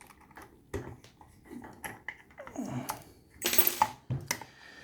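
Scattered metallic clicks and clinks of a freshly picked padlock and its pick and tension wrench being handled, the loudest clatter a little past halfway.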